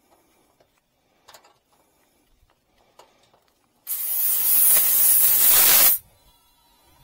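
Refrigerant gas hissing loudly out of a mini-split's service port for about two seconds as the charging hose's valve-depressor end is screwed on and pushes open the Schrader valve core, then cutting off sharply. Before it come a few faint clicks from handling the brass fittings.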